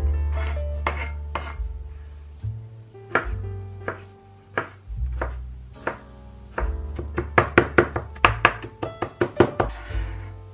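Chef's knife mincing garlic on a bamboo cutting board: a few scattered chops, then a quick run of chops at about four a second in the second half. Background music with a steady bass runs underneath.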